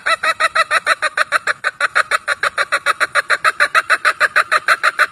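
Chicken clucking in a rapid, even run of about seven or eight short clucks a second, cutting off suddenly at the end.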